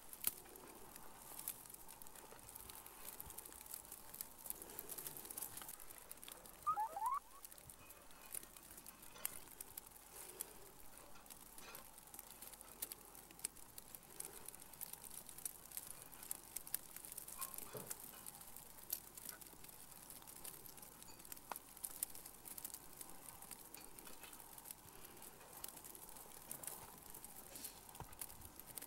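Faint outdoor ambience with scattered light clicks and crackles, and one short rising chirp about seven seconds in.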